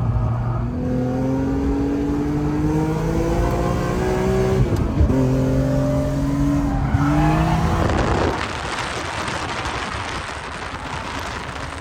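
Race car engine pulling hard through the gears, its pitch climbing, dropping at an upshift about 5 seconds in, and climbing again until another shift about 7 seconds in. After that a loud rough rushing noise takes over from the engine note.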